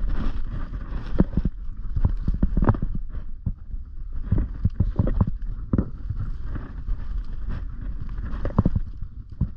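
Footsteps of a player moving quickly over the ground: irregular thuds and knocks, several a second, over a low rumble.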